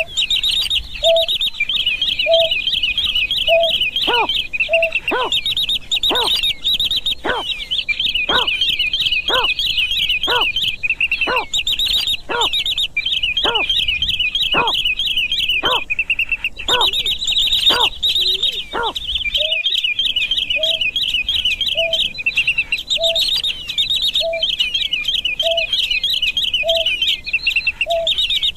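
Greater painted-snipe calling: a series of short low hoots, a little over one a second. In the middle, for about fifteen seconds, they give way to falling notes at about the same pace, then the hoots return. A dense high twittering chatter of other birds runs underneath.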